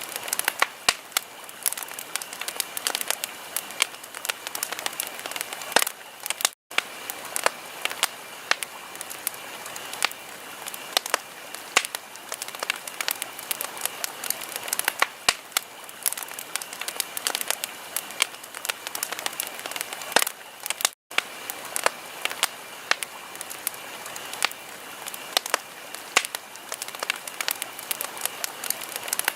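Wood fire crackling, with frequent sharp pops and snaps over a steady hiss. The sound cuts out to silence for an instant twice, about a quarter of the way in and again about two-thirds in.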